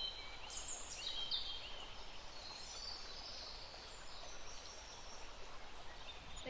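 Small birds chirping in short, high calls, busiest in the first couple of seconds, over a steady outdoor background hiss.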